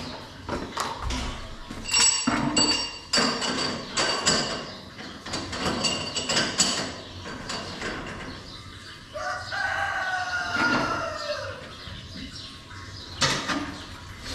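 Farm sounds: a run of knocks and metallic clanks, then a drawn-out animal call that falls slightly in pitch, about nine to eleven seconds in.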